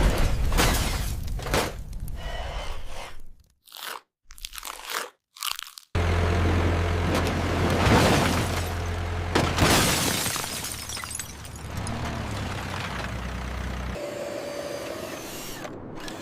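Crunching and cracking impacts of model cars being crushed and smashed. There are several sharp hits, a few brief drops to silence, then a steady low hum under further crashes.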